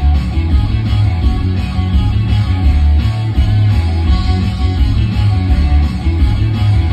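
Rock song with guitars played loud through a Sony SH 2000 and Tornado 5000 home sound system with large woofer cabinets, the bass strongest in the mix.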